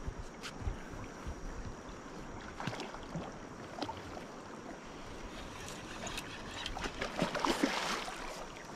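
Steady rush of river water with scattered small knocks and rustles, growing into a louder patch of clattering and rustling about seven seconds in.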